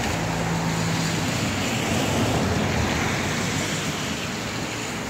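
Steady rushing noise, with a Manx Electric Railway electric tramcar running over a stone viaduct at a distance; a low hum fades out about a second in.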